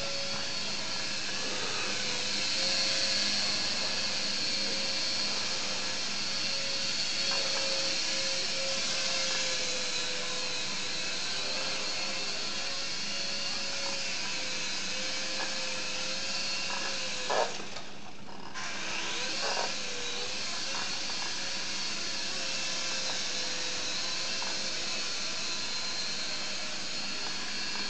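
Air Hogs Helix 360 single-rotor RC toy helicopter's small electric motor and rotor whining steadily in flight, the pitch wavering slightly. About seventeen seconds in there is a short knock, then the whine drops out briefly and spins back up.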